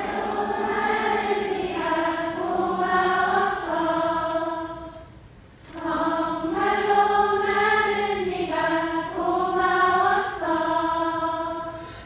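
Many voices singing a slow melody together in unison, choir-like, in long held notes: two phrases with a short break about five seconds in.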